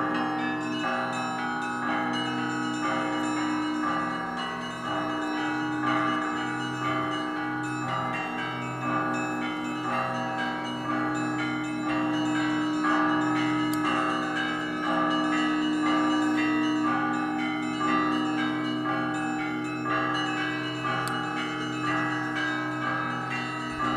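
Russian Orthodox monastery belfry bells rung together in a festive peal: many bells sound at once, lower bells struck in a steady even rhythm beneath quick chiming of small bells.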